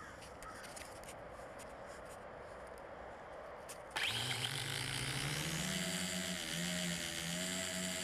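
A LaTrax Alias quadcopter's four electric motors and propellers, heard from its onboard camera. After a few seconds of faint clicks and rustling, the motors spin up suddenly about four seconds in into a loud, steady whir that rises in pitch as the drone lifts off, then holds, wavering slightly.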